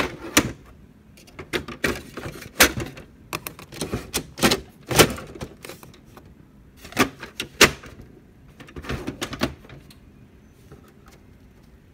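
Sharp plastic clicks and knocks of a toner cartridge being pushed and seated in an HP Laser MFP printer, a dozen or so irregular strikes that die away near the end.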